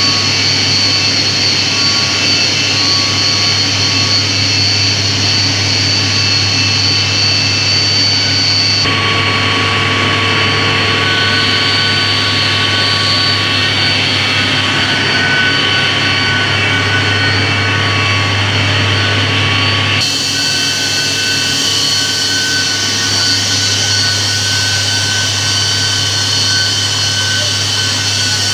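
Steam turbine-generator set of about 1500 kW running: a loud steady drone, with a high whine over a low hum, whose tone shifts abruptly twice.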